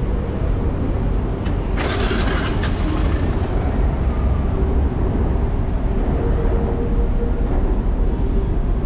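City street traffic: a steady low rumble of passing vehicles, with a short burst of hissing about two seconds in.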